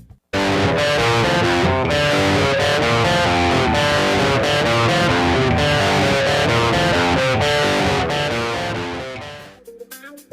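Rock music led by electric guitar, strummed with some distortion over a full, dense mix. It starts abruptly about a third of a second in and fades out near the end.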